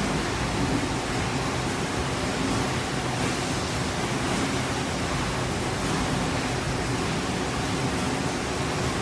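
Steady, even machinery noise of a running kettle chip production line, a low hum under a broad hiss, with no distinct knocks or changes.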